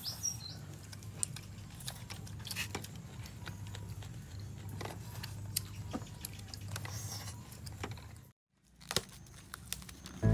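People eating grilled beef: faint chewing with scattered small clicks and taps of utensils and bowls, over a low steady hum. The sound drops out completely for a moment near the end.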